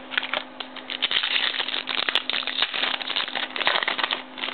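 Baseball trading cards being flipped through by hand, one sliding off the next in a rapid run of papery clicks and rustles.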